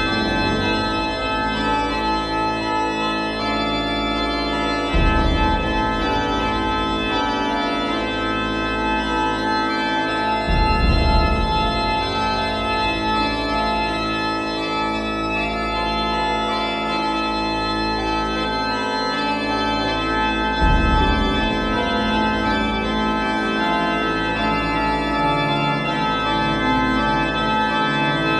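Organ music: long, held chords, with a deep bass note swelling in three times, about five, ten and twenty seconds in.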